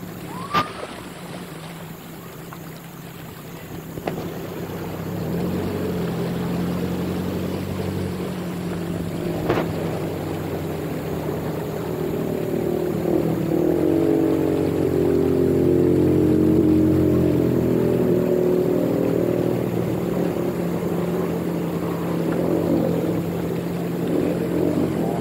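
An off-road jeep's engine running steadily as it wades through floodwater, with water sloshing and washing around. The engine grows louder through the middle, where a higher engine note comes and goes. There are two short knocks, one near the start and one about ten seconds in.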